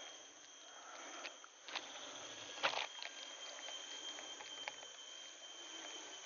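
Quiet tropical forest ambience: a steady high insect drone on one note, with scattered faint clicks and ticks and one short louder knock about two and a half seconds in.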